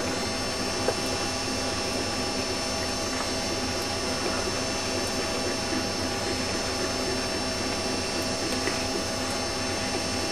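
A small motor's steady whirring drone, unchanging throughout, with a faint click about a second in.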